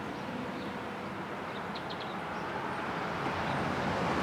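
Outdoor background noise, a steady rush that grows gradually louder toward the end, with a couple of faint bird chirps about two seconds in.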